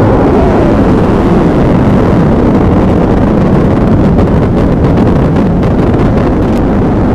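BMW R1150GS's air-cooled boxer twin running as the motorcycle rides a muddy track, heard through a helmet camera with heavy wind noise on the microphone. From about four seconds in come scattered sharp clicks.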